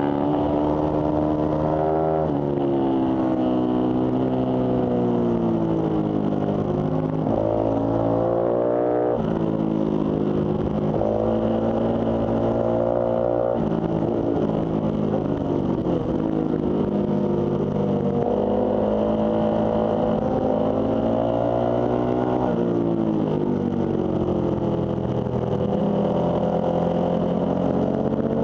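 Ducati sportbike's V-twin engine heard from onboard at speed, its pitch climbing and then dropping sharply several times as it is ridden hard through the gears, and sliding down more slowly as it backs off for corners.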